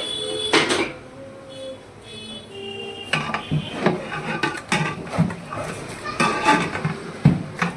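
Ten kilograms of raw chicken being mixed with spices, oil, onions and tomatoes in a large metal cooking pot: irregular knocks and scrapes of the meat and stirring against the pot, starting about three seconds in.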